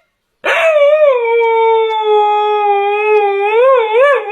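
A dog howling: one long howl that starts about half a second in, slides down in pitch, holds, then wavers up and down near the end.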